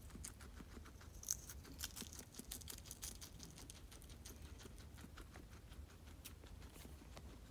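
Guinea pig nibbling and chewing lettuce: faint, quick, irregular crisp clicks.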